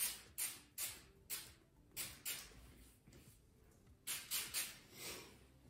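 Aftershave splash being shaken and dabbed out of its bottle: a run of short, quick liquid shakes, about six in the first two seconds, a pause, then four or five more near the end.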